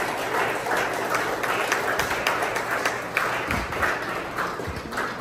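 A group of people applauding, the individual claps thinning out and fading toward the end.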